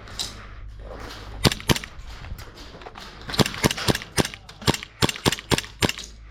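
Airsoft guns firing single shots, sharp pops: two in quick succession about a second and a half in, then a run of about ten, roughly three or four a second, over the last three seconds.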